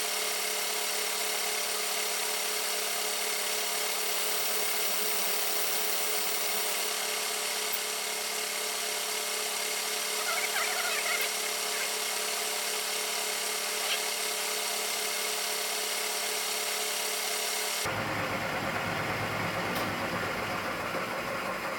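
Drilling machine running steadily with a constant whine while a 1/8 inch drill bit is held against hardened steel that it is not cutting. Near the end the sound changes abruptly.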